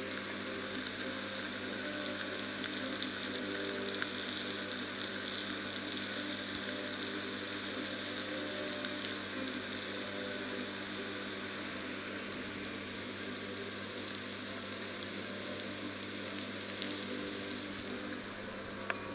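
Marinated pork steaks sizzling in a hot cast-iron grill pan: a steady hiss with fine crackling and the odd sharper pop, over a steady low hum.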